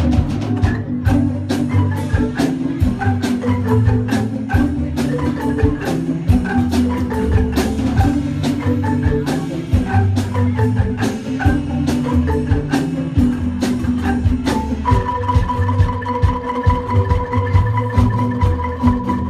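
A marimba band playing: several wooden marimbas struck with mallets in fast, dense patterns over a repeating low bass line. About fifteen seconds in, a steady high tone comes in and holds under the playing.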